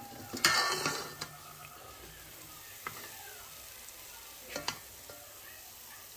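Puff puff dough balls sizzling steadily in deep frying oil, with a slotted spoon scooping through the oil: a loud burst of noise about half a second in and a few short knocks of the spoon against the pot later on.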